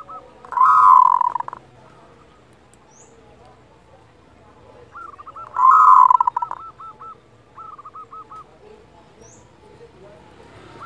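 Zebra dove (perkutut) calling: twice, about five seconds apart, a loud rolling call of about a second, with strings of short rapid notes around them, the 'kerot' voice of a local perkutut.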